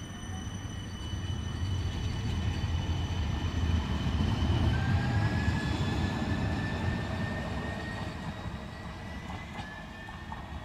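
Siemens Avanto tram-train moving off past the listener, its electric traction drive giving a whine that rises in pitch as it picks up speed, over a low rumble of wheels on rail. The sound swells to a peak midway and then fades as the train draws away.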